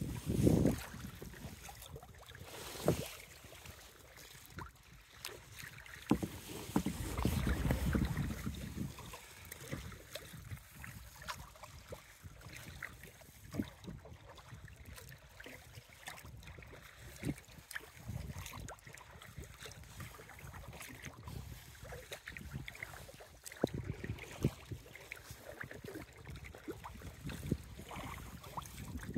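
Kayak paddle strokes dipping and splashing in choppy open water, with water lapping at the hull. A few gusts of wind buffet the microphone.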